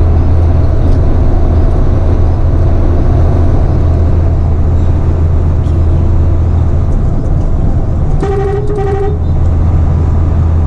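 Steady low drone of the truck's engine and road noise inside the moving cab. About eight seconds in, a vehicle horn gives a short double toot.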